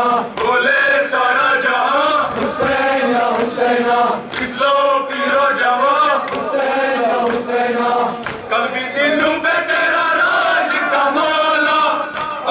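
Men chanting a Muharram noha (lament) together, with evenly spaced hand strikes of matam chest-beating keeping time, about one and a half a second.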